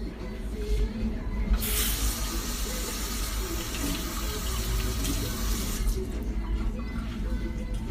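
A kitchen tap running into a sink: the rush of water starts about a second and a half in and is turned off about four seconds later.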